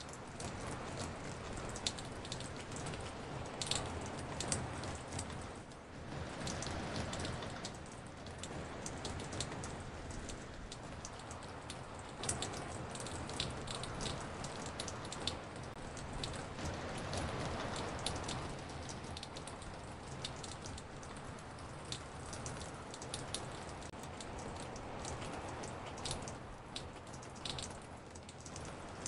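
Rain drops dripping on a porch: many sharp, irregular taps of single drops over a steady rain hiss, layered from several recorded drop samples and spread around the stereo field.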